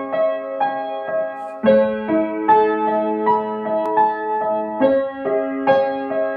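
Piano played with both hands: a repeating broken-chord figure rings over held bass notes. The harmony changes about two seconds in and again near five seconds.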